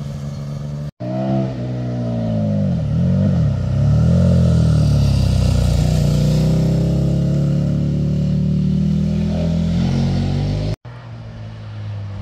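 KTM Super Duke's V-twin engine, loud, as the bike is ridden through a bend. Its note drops and picks up twice, then rises steadily as it accelerates. Short clips of other engines lie on either side of it: another motorcycle at the start, and a quieter car engine near the end, where a Porsche Cayman appears.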